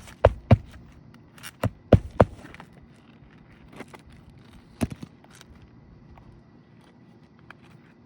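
Nails being driven into asphalt roof shingles: sharp knocks in quick clusters, a pair at the start, three about two seconds in and two more about five seconds in, with faint scraping between.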